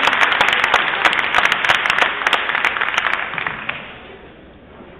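A small group clapping, a dense patter of hand claps that dies away about three seconds in.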